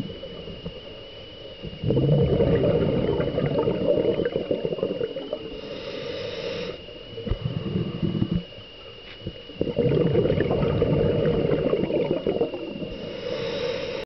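Scuba diver breathing through a regulator underwater: bursts of exhaled bubbles about two seconds in, briefly near eight seconds and again near ten seconds, with a quieter inhalation hiss between them and near the end, over a steady high whine.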